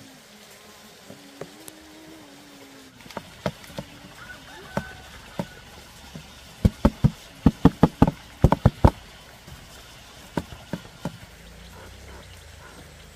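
Sharp knocks, scattered at first, then a quick run of about ten blows at roughly four a second in the middle, and a few more afterwards.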